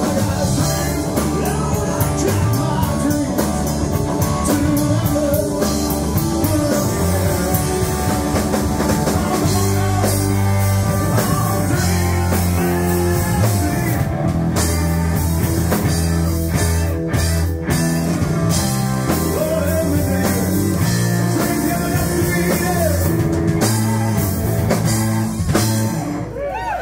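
Live rock band playing loud: electric guitars, bass and drum kit with a male singer. The song ends just before the close.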